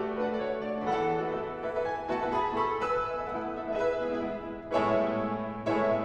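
Several grand pianos playing together as an ensemble: repeated struck chords that ring and fade, with a louder group of chords near the end.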